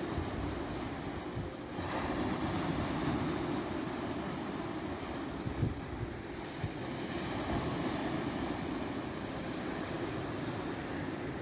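Black Sea surf washing on the shore, with wind rumbling on the microphone; a couple of brief knocks a little past the middle.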